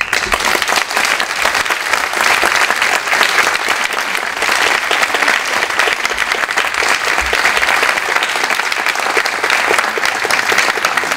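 Audience applauding: dense clapping that starts suddenly and keeps going at a steady level.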